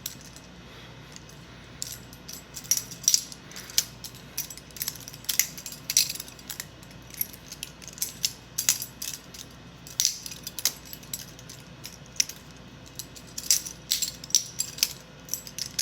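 Butterfly knife (balisong) being flipped and handled: its metal handles and latch clack against each other and the blade in irregular clusters of sharp metallic clicks.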